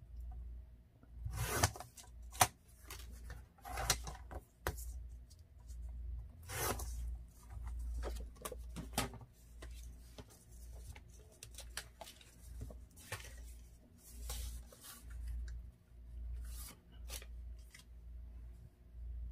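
Scissors snipping paper, with sheets of paper being handled and shifted, in short irregular rustles and snips over a faint low hum.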